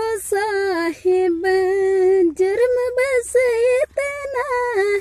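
A woman's voice singing long, held notes that waver slightly in pitch, in a few phrases with short breaks between them.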